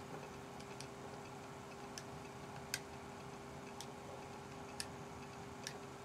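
Keypad buttons pressed one at a time: about six sharp clicks at uneven intervals, the loudest nearly three seconds in, over a faint steady hum.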